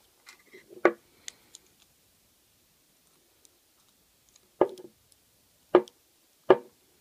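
Sharp metal clicks and taps of a lock pick and tension wrench being handled against a Burg-Wächter 770 padlock. A few clicks come in the first two seconds, then a pause, then three loud clicks about a second apart near the end.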